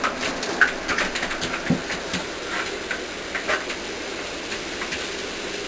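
Shower running: a steady hiss of water spraying down in a small shower stall, with scattered clicks and taps through it.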